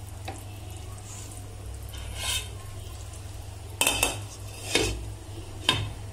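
Glass pot lid with a steel rim clinking against the rim of a nonstick kadai as it is set on and adjusted: a soft scrape a little after two seconds in, then three sharp clinks over the last two seconds or so.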